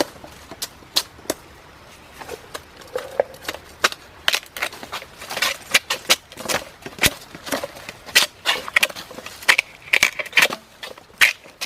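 Irregular sharp cracks and snaps of bamboo and dry plant material being cut and broken off, sparse at first and coming thicker after about four seconds.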